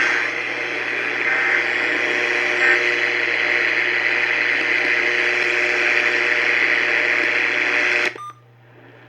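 Steady hiss and static from a broadcast radio receiver with no programme audio, cutting off abruptly about eight seconds in.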